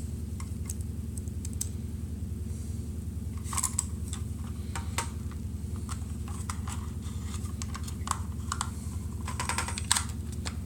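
Small hard plastic clicks and taps from a Logitech M570 trackball's parts being handled and fitted back together, in scattered clusters a little after three seconds in and again near the end, over a steady low hum.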